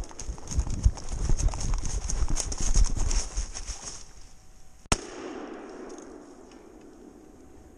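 A flurry of irregular thumps and rustling in dry leaves for about four seconds, then a single sharp crack about five seconds in.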